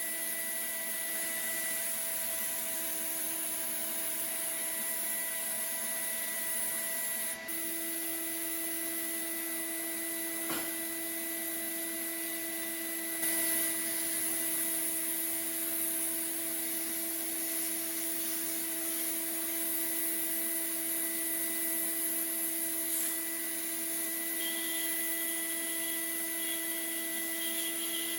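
Electric power tool running steadily with a high hiss and a steady whine, with a brief dip and change of pitch about seven seconds in.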